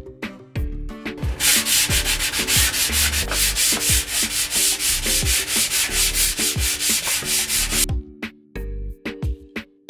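A sanding block rubbed by hand along the primed edge of a cedar tongue-and-groove lining board in rapid back-and-forth strokes. The rasping starts about a second and a half in and stops abruptly near the end.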